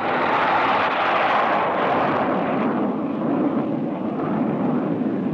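Jet roar of a Convair B-58 Hustler's four General Electric J79 turbojets on the takeoff roll. The roar deepens in the second half as the bomber goes past.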